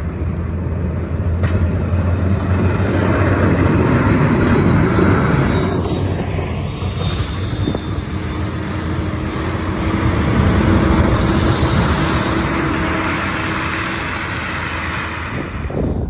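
A road grader and then a snowplow truck passing close by, their diesel engines running under load as their blades push snow along the road. The noise swells twice, once as each machine goes by.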